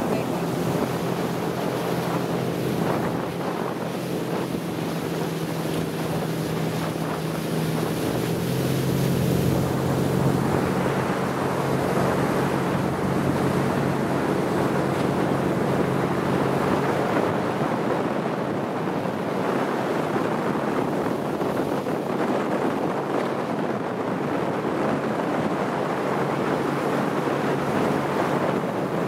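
A motorboat engine humming under the rush of water along the hull and heavy wind on the microphone, recorded from aboard the moving boat. The engine's pitch steps up slightly about a third of the way in, and the engine sinks into the water and wind noise a little past the middle.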